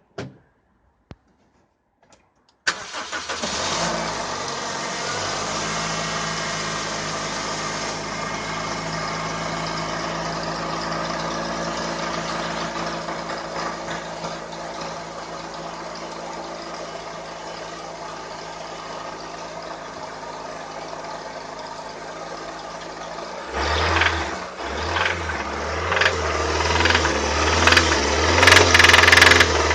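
Toyota Avensis 1.8-litre four-cylinder petrol engine starting about three seconds in and settling into a steady idle. Near the end it grows louder and rougher, with irregular knocking and rattling from the engine, the fault the owner is trying to find.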